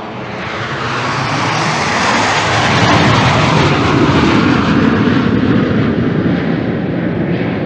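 Canadair CT-114 Tutor jet trainer's single turbojet engine passing. The roar swells to its loudest about three to five seconds in, then fades.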